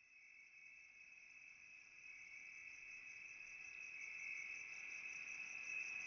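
Crickets trilling in a steady high chorus, a nature-ambience recording laid over the picture, fading in quietly and growing steadily louder.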